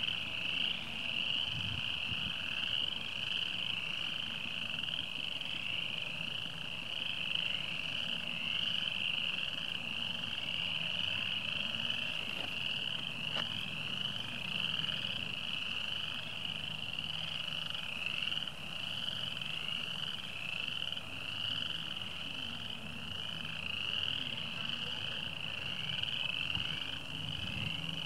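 A dense, continuous chorus of spring peepers: many high, short peeps rising in pitch, overlapping into one steady shrill sound.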